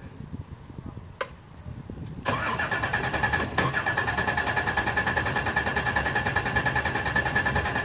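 Two clicks, then the starter spins the boat's supercharged 540 ci alcohol engine over in a steady, evenly pulsing crank with a whine. It cranks for about five seconds without catching and stops abruptly.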